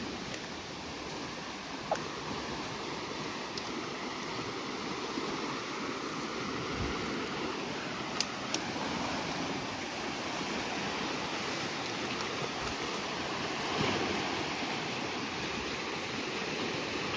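Muddy stream in flash flood after heavy rain, rushing steadily and growing gradually louder, with a few brief sharp clicks.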